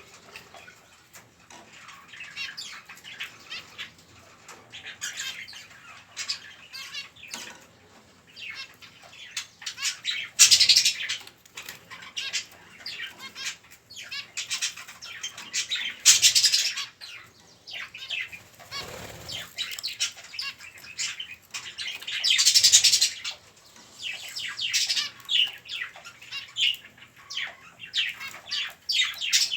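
Budgerigar chicks chirping and making raspy begging calls while being hand-fed egg food, many short calls in quick succession. There are three louder, harsher bursts of calling, about a third, half and three quarters of the way through.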